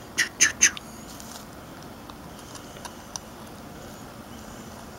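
Three short, sharp sounds in quick succession just after the start, then a few faint light clicks as small metal parts of a Model A Ford wiper motor are handled.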